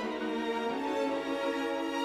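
Slow background music of long held notes.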